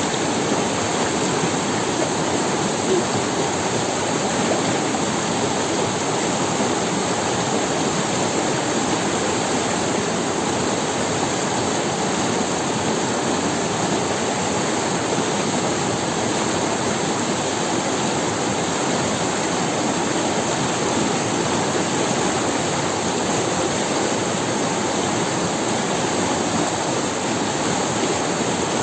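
Forest river running down over stones: a steady, even rushing of water.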